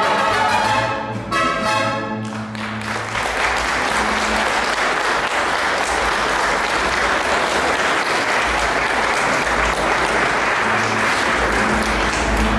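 Choir music ends about two and a half seconds in, then a congregation applauds steadily for the rest of the time.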